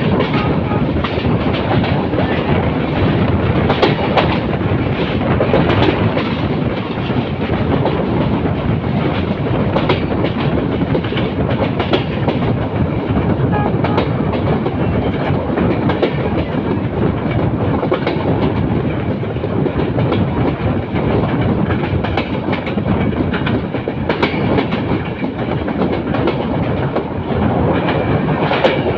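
Moving passenger train heard from an open window of one of its coaches: a steady rumble of wheels on the rails and rushing air, with irregular clicks and clacks as the wheels pass over rail joints.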